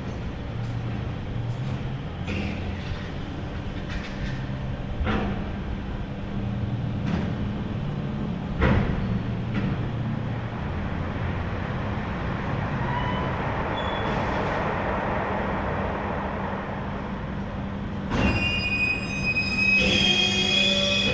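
Unidentified creaking and screeching over a steady low mechanical hum, with a few sharp knocks in the first half and a high-pitched screech near the end; the listener believes it comes from building work nearby.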